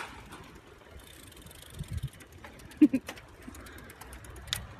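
Outdoor street ambience with a low rumble of movement and scattered clicks and knocks, broken about three seconds in by a short low call, the loudest sound here.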